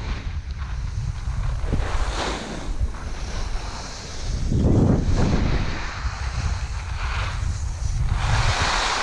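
Wind buffeting the microphone of an action camera worn by a moving skier, a steady low rumble, with skis hissing and scraping over packed groomed snow in surges at the turns, the loudest near the end.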